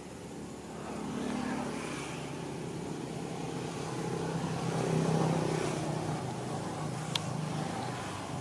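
An engine running steadily with a low hum that swells about halfway through and then eases off. A single sharp click about seven seconds in.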